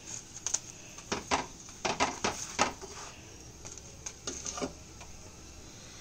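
Slotted metal spatula tapping and scraping against a non-stick frying pan in short, irregular clicks as it presses a paratha shallow-frying in oil, over a faint steady sizzle.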